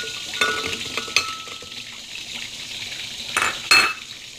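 Candlenuts, shallots and garlic tipped from a glass bowl into a blender jar: clicks and knocks on the jar, one with a brief ring, and two louder knocks near the end. Under them runs a steady sizzle of fish frying in oil.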